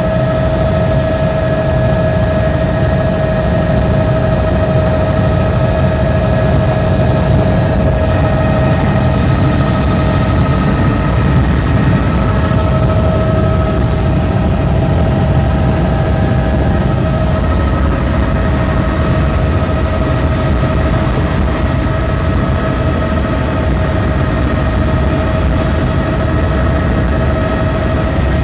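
Helicopter in flight heard from inside the cabin: engine and rotor noise running steadily and loudly, with a low rumble and a steady high whine over it.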